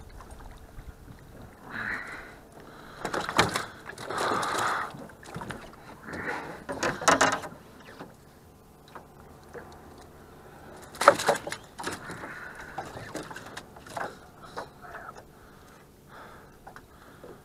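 Handling noises in a small aluminum fishing boat: scattered knocks and clatters against the hull and gear, with rustling, as a freshly caught smallmouth bass is worked out of the landing net by hand. The sharpest knock comes about eleven seconds in.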